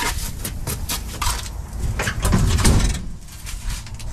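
Knocks, clanks and scraping of someone moving about under the van beside a dropped transmission and its jack, with a low rumble loudest about two and a half seconds in.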